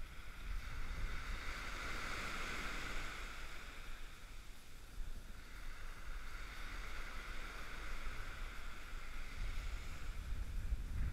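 Small waves washing in and receding on a sandy beach, the wash swelling twice, with wind buffeting the microphone as a low rumble that grows heavier near the end.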